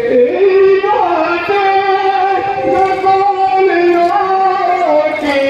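A single voice singing a noha, a Shia mourning lament, in long held notes that slide from one pitch to the next, with no instrumental accompaniment.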